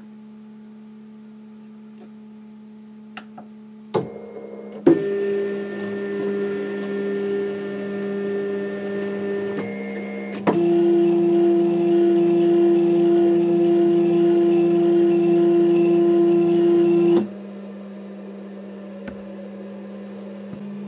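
Stepper motors of a home-built 3D printer driving its axes: a click, then a steady whine for about five seconds, and after a short break a louder, lower whine for about seven seconds that stops abruptly. A steady low hum runs underneath.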